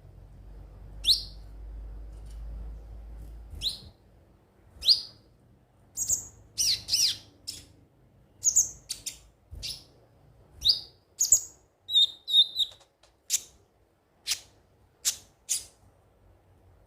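Kolibri ninja (konin) sunbird calling: a series of short, sharp, high chirps that each sweep down in pitch, about fifteen spread unevenly, some in quick pairs. A low rumble sits under the first few seconds.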